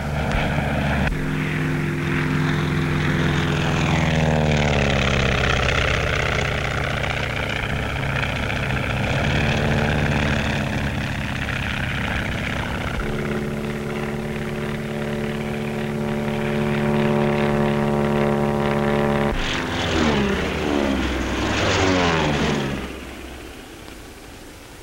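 Biplane propeller engines droning, their pitch falling twice as planes pass, then dying away near the end.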